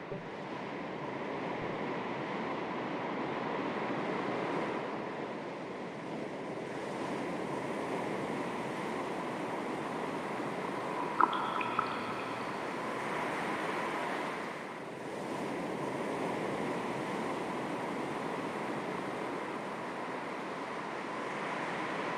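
Calm sea with small waves lapping on the shore, a steady wash of water that swells and eases every few seconds. A short, high chirp sounds about halfway through.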